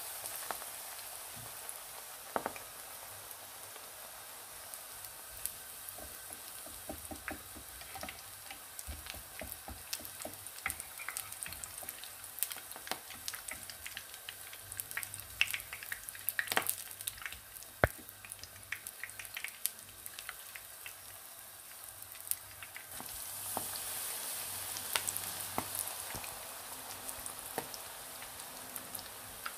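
Battered kohlrabi leaves frying in hot oil in a pan: a steady sizzling hiss scattered with sharp crackles and pops, growing louder for the last several seconds.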